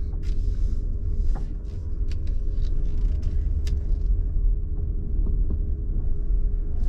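Car driving, heard from inside the cabin: a steady low rumble of tyres and road with a faint steady hum, and a few light clicks.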